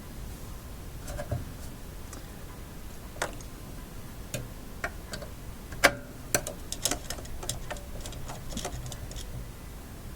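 Irregular sharp metallic clicks and taps from handling a tube shield and tube on a radio chassis, bunched together in the middle, over a faint steady low hum.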